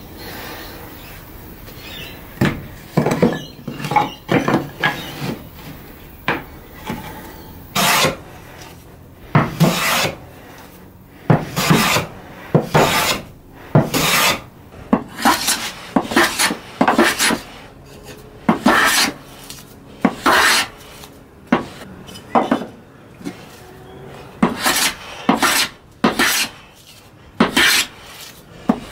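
Hand plane shaving a wooden board, a run of short scraping strokes roughly one a second, some in quick pairs, starting a couple of seconds in.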